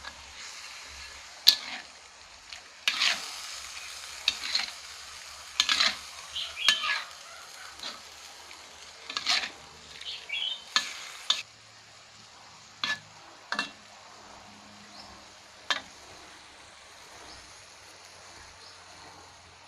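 Pork and chilies sizzling as they are stir-fried in a pan, with a spatula stirring and knocking sharply against the pan many times. About halfway through, the sizzle dies down and only a few more knocks follow.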